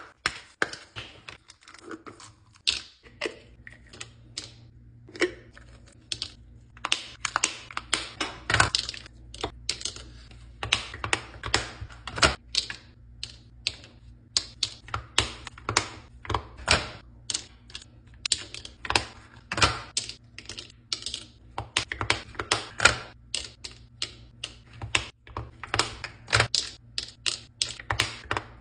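Plastic pill organizer being handled: hinged compartment lids clicking open and snapping shut, and capsules being dropped into the plastic compartments. Many quick, irregular clicks and taps.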